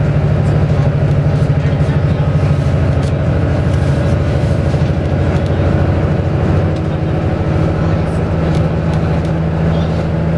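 Running noise heard inside a moving train carriage: a steady low rumble and hum from the wheels on the rails and the running gear, easing slightly about seven seconds in.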